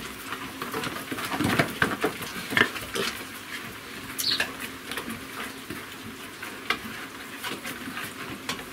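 A sow and her piglets moving about and rooting in a straw-bedded pen: irregular light clicks, scuffs and rustles from trotters and snouts on the plank floor and straw.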